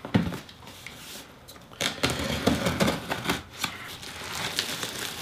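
Packaging being handled: irregular rustling of paper and plastic with light knocks and clicks as items are moved about.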